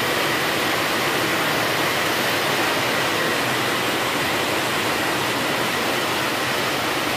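Rain falling steadily on a corrugated metal roof: an even, unbroken hiss.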